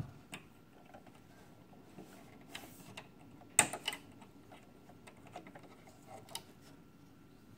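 Scattered light clicks and small handling noises from the parts of a sewing machine's bobbin area being taken out by hand, with one sharper click about three and a half seconds in.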